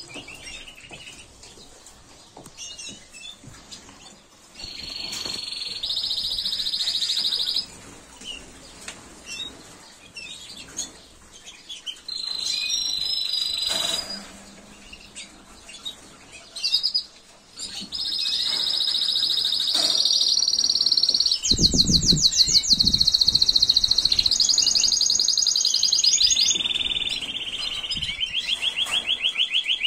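Spanish Timbrado canaries singing: long rolling trills of fast repeated notes, each held for a second or more before stepping abruptly to a new pitch, in phrases separated by short pauses. A few low thumps come about two-thirds of the way through.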